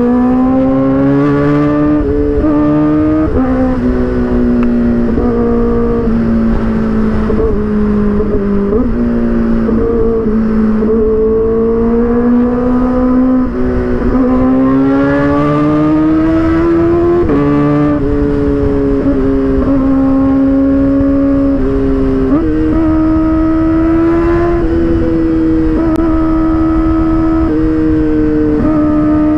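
Kawasaki inline-four sport motorcycle engine running hard at high revs while riding. Its pitch climbs slowly and jumps abruptly several times as the quick shifter changes gear.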